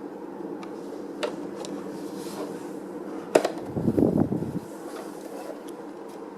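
Hands handling a plastic strap buckle: a few light clicks, a sharp click about three and a half seconds in, then about a second of rubbing and bumping, over a steady low hum.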